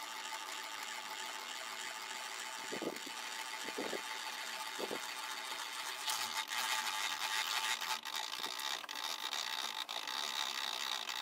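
Milling machine slide traversing under its feed, sped up threefold: a steady mechanical whir with a few steady tones. There are three soft knocks about three, four and five seconds in, and it gets louder about six seconds in.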